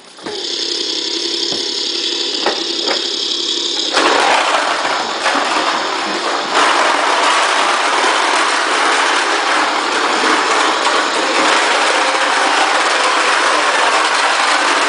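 Plastic toy push lawn mower clattering and rattling as a toddler pushes it along, the balls inside its clear dome tumbling as the wheels turn. The clatter gets louder and denser about four seconds in.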